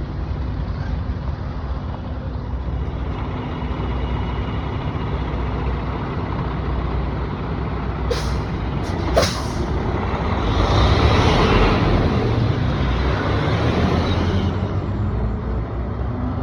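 Diesel asphalt haul truck running, with two short, sharp air-brake hisses about eight and nine seconds in. The truck then grows louder for about four seconds before easing back.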